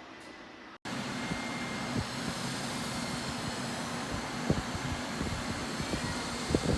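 Lefant M201 robot vacuum running, a steady motor whir and brush noise that cuts in abruptly about a second in, with scattered knocks toward the end.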